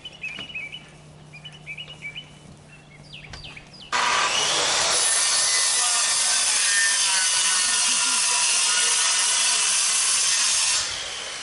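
Aerosol spray paint can hissing in one continuous spray of about seven seconds, starting suddenly about four seconds in and cutting off near the end: a test spray to check whether the paint colour matches.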